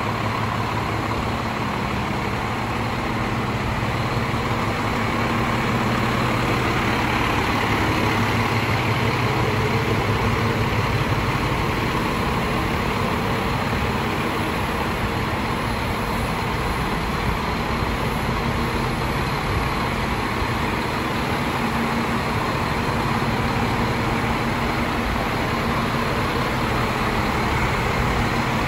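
Scania G440 truck's 13-litre six-cylinder diesel engine idling steadily.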